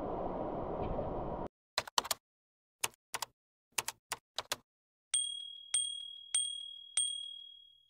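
Stream water rushes steadily for about a second and a half, then cuts off. Channel-intro sound effects follow: a run of sharp typing-like clicks, then a notification bell dinging four times, each ring fading.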